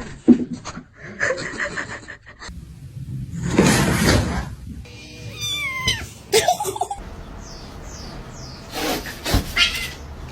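Cat meowing several times in separate short calls, one sliding down in pitch, with music in the background.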